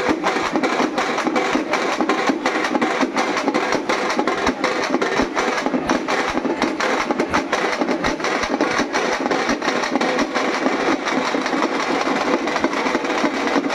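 A troupe of drummers beating cylindrical stick drums in a fast, driving, even beat, with no break.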